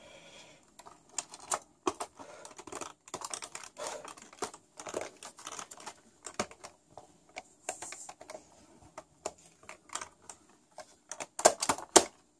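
Plastic top cover of a Superscope CD-330 portable cassette recorder being worked down over its piano-key controls and pressed into place: a run of irregular plastic clicks, taps and scrapes, with two louder sharp clicks near the end.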